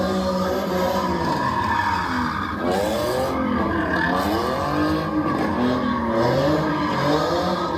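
A car's engine revving up and down over and over while its tyres screech and skid as it spins donuts.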